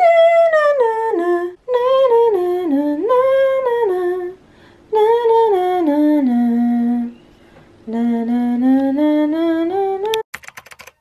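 A single voice singing a wordless tune in long gliding phrases, with short breaks between them. A quick run of clicks comes near the end.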